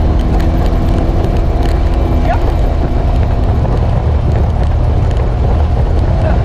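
Polaris RZR 900 Trail side-by-side running steadily along a rough dirt trail, heard from the open cab: the twin-cylinder engine's drone mixed with tyre and chassis rumble. A short rising squeak comes a little over two seconds in.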